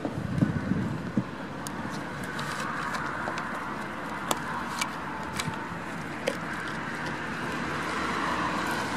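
Wind buffeting the microphone in the first second or so, then a steady outdoor hiss with a handful of sharp, separate clicks.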